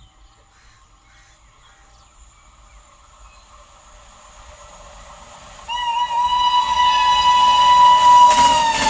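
WAP-7 electric locomotive horn sounding one long, shrill blast that starts suddenly a little past halfway, after the rumble of the approaching train has grown louder. Near the end the horn's pitch dips slightly as the locomotive passes, and wheel clatter starts.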